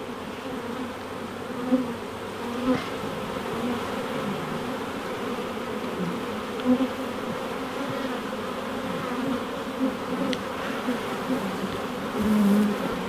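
A swarm of honey bees buzzing in a dense, steady hum with many wavering pitches, from a frame crowded with bees lifted out of a nuc box. A few faint knocks sound now and then.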